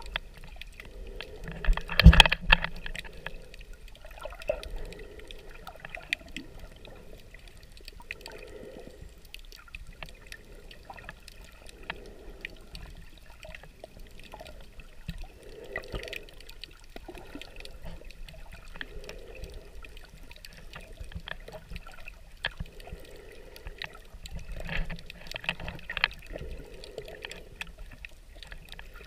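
Underwater sound picked up by a submerged camera: water moving around the housing, with scattered crackling clicks and a soft muffled swell that recurs about every three to four seconds. A louder knock comes about two seconds in.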